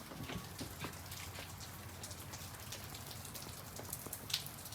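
Light rain falling, a faint steady patter of scattered drops on a surface, with one sharper drop near the end.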